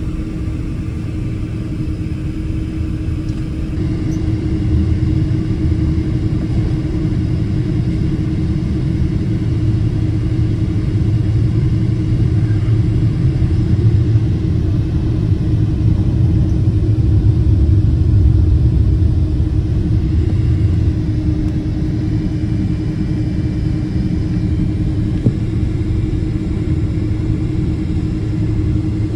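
Boeing 777-200ER heard from inside the economy cabin on its takeoff run: a steady engine drone with a constant low hum, growing louder about four seconds in as takeoff thrust comes up. Heavy rumble builds during the roll and eases after about twenty seconds as the wheels leave the runway.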